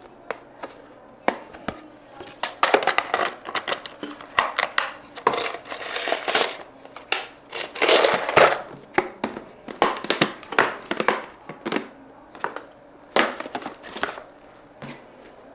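Irregular clatter and clinks of small hard objects being picked up, moved and set down, many quick knocks with a few brief ringing clinks.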